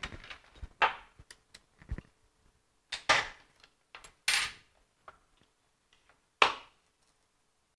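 Handling sounds of a plastic clamp meter: a series of sharp clicks and knocks as it is brought in, its jaws opened and clamped around a wire, and it is set down on a wooden bench, over a faint steady hum.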